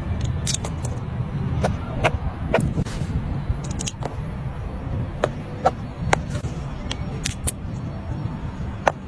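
Fidget toys being handled: irregular sharp clicks and snaps, some with a short ring, about one or two a second over a steady low hum.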